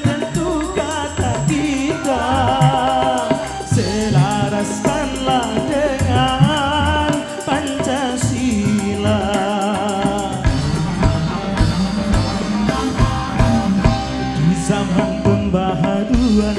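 Live dangdut band music: a wavering melody line over electric guitar, bass, drum kit and hand drums.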